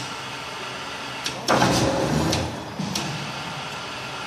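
Workshop machinery hum with sharp metallic clicks and a loud scraping, clattering burst lasting just under a second, about a second and a half in.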